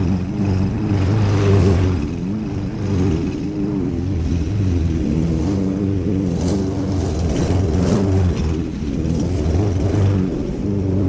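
Small gasoline engine running steadily, its low pitch wavering slightly up and down.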